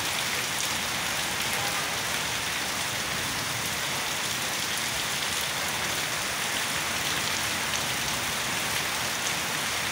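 Heavy rain falling steadily at night, drumming on sheet-metal roofs and pouring off the roof edge in streams. It makes an even, unbroken rush of rain noise.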